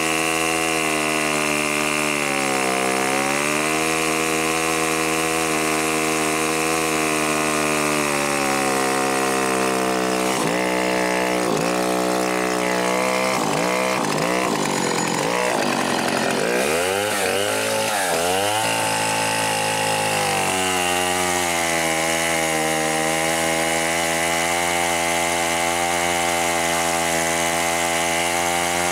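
Yuzhoukee YZ105 105cc two-stroke chainsaw running at high revs while cutting a log. Its pitch dips briefly near the start, then drops and wavers repeatedly through the middle as the engine bogs under load, before steadying again: the freshly degreased centrifugal clutch is now grabbing.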